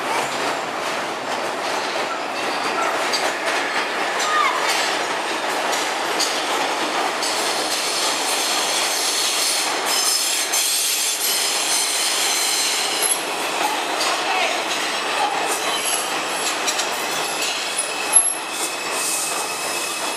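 New York City Subway R142 trains in a station, one pulling out and another pulling in on the far track: a steady rumble of steel wheels on rail, with high-pitched wheel squeal through the second half and one sharp clank near the end.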